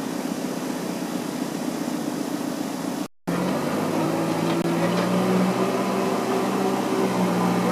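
Backhoe loader's diesel engine running steadily while it pushes snow with its front bucket. The sound cuts out for a moment about three seconds in, and after that the engine runs at a lower, slightly louder note.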